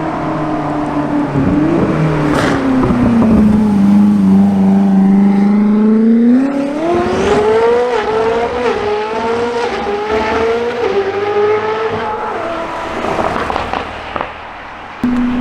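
Koenigsegg Jesko Attack's twin-turbo V8 note sinks and holds low, then the car accelerates hard from about six seconds in, the revs climbing through several quick upshifts before the sound fades away.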